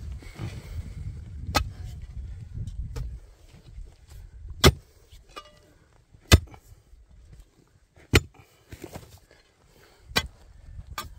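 Steel digging bar driven into stony earth: about seven sharp strikes, roughly every one and a half to two seconds, as it breaks up rock and soil in the hole. A low rumble runs under the first three seconds.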